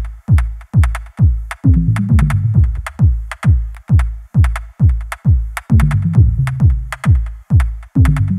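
Electronic background music with a steady drum-machine beat, about two kicks a second, over a bass line.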